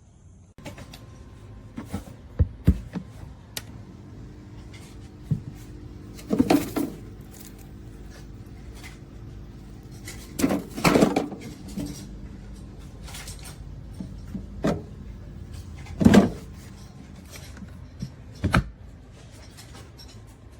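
Irregular knocks and clunks, like objects being handled or set down, over a steady low hum.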